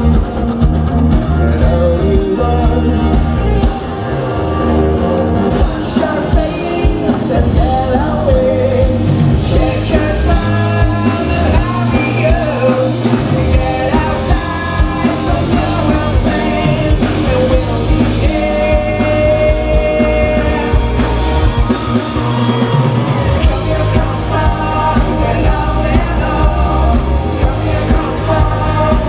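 Live rock band playing with a lead singer, loud and full throughout.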